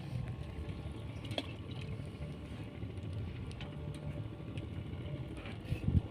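A fishing boat's engine running steadily as a low rumble, with a knock near the end.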